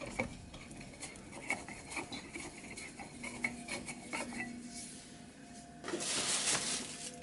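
Light metallic clinks and knocks from a manual pan brake's steel clamp bar and handle being worked by hand, with a short scraping rasp about six seconds in.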